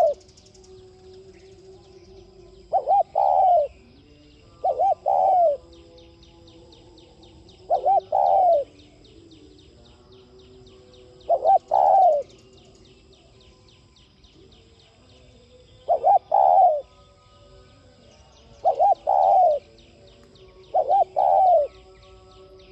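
Spotted dove cooing: a repeated phrase of two short coos and a longer third note, about seven times at intervals of two to four seconds. A faint, fast, even ticking trill runs high in the background.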